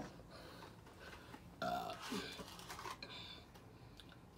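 A person burping once, about a second and a half in, after a drink. A sharp knock right at the start.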